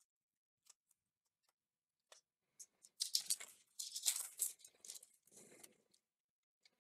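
Dry, papery onion skin being peeled and torn off a yellow onion by hand, crackling and rustling. After a near-quiet start there is a run of short crackles from about two seconds in.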